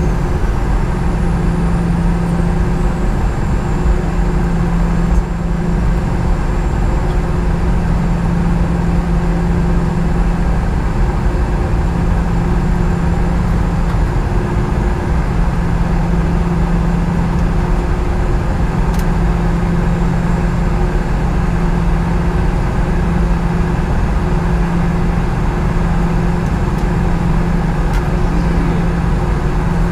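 Boeing 717's rear-mounted Rolls-Royce BR715 turbofan engines running at taxi power, heard inside the cabin close to the engines: a steady drone with a strong low hum, and a faint high whine that slides down in pitch over the first several seconds.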